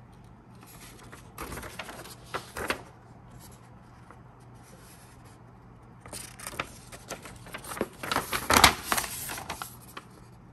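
Paper rustling as a large folded instruction sheet is handled and turned over. It comes in two spells: a short one about a second and a half in, and a longer, louder one from about six to nine and a half seconds in.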